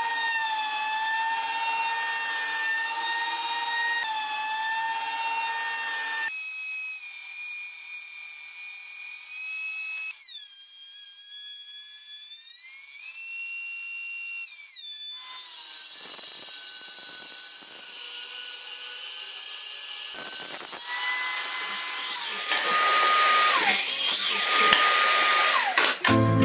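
Benchtop thickness planer running with a steady high motor whine as a wood-and-epoxy board feeds through. The whine's pitch shifts and glides up and down several times. Near the end comes a louder, noisier stretch of power-tool sound.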